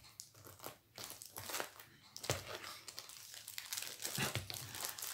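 Plastic packaging crinkling and rustling in short, irregular bursts as it is handled: the tightly packed little bags of square diamond-painting drills in their plastic wrapper.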